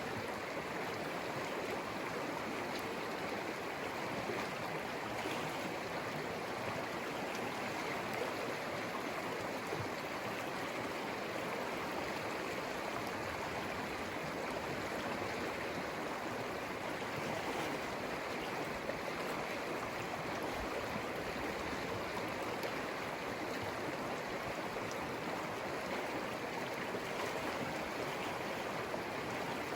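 The Conejos River flowing: a steady rush of stream water with no break or change.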